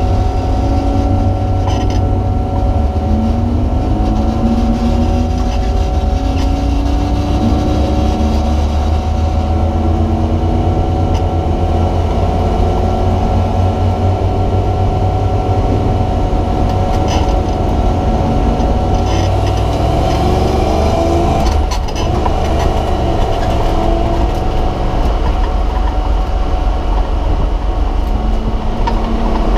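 Race car engine heard from inside the cabin, revving up and down as the car is driven hard around the track, over a steady drone of road and wind noise. A big rise in revs comes about two-thirds through, followed by a brief dip.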